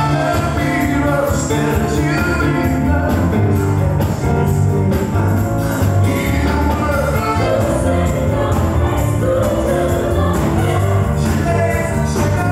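Music with singing and a steady beat, playing loudly and without a break.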